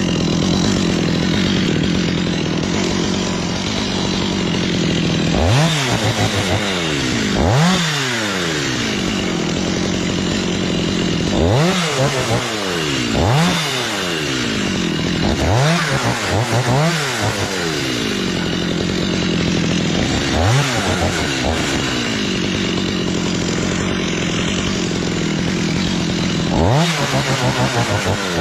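Chainsaw running steadily, its engine revved up and back down several times.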